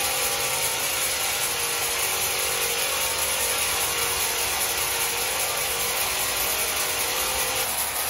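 Sawmill saw cutting through wood: a steady, noisy run with a faint hum underneath.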